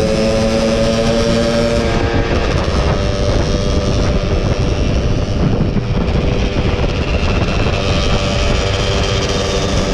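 Two-stroke Yamaha F1ZR underbone motorcycle engine running at road speed under a heavy rush of wind on the microphone. Its note rises slightly in the first two seconds, is then mostly buried in wind noise, and a steady engine tone comes back near the end.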